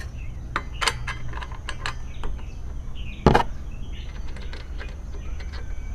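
Metal clicks and knocks of a spacer washer being handled and fitted onto a 7-inch circular saw by hand, with one louder knock about three seconds in. The saw is not running.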